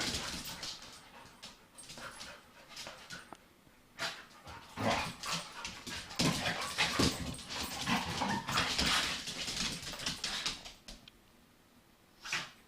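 Two puppies playing together, with short whimpers and yips among irregular scuffling noise. The activity is busiest from about four to eleven seconds in, then dies down.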